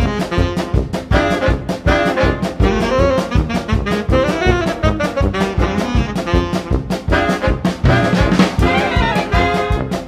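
Background music: an upbeat jazz tune led by brass horns over a steady beat.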